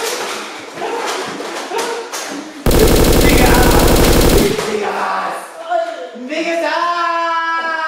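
A loud burst of rapid machine-gun fire, a sound effect, cutting in suddenly about three seconds in and lasting under two seconds, with voices shouting before and after it.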